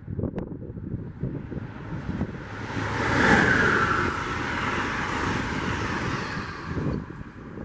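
Amtrak passenger train hauled by an ACS-64 electric locomotive passing at speed: a rushing roar of wheels on rail and air that swells as the locomotive arrives about three seconds in, stays loud while the coaches go by, and falls away near the end as the last car passes.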